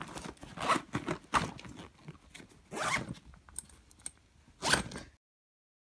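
Zipper on a fabric duffel bag being pulled shut in four short pulls, each a brief zip.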